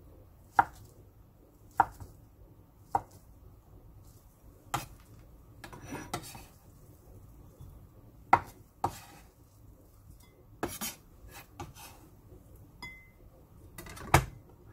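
Kitchen knife cutting imitation crab sticks on a wooden cutting board, a sharp knock of the blade on the board about once a second for the first few seconds. Then the pieces are scraped off the board into a ceramic bowl, with scattered knocks and clatters and a louder thump near the end.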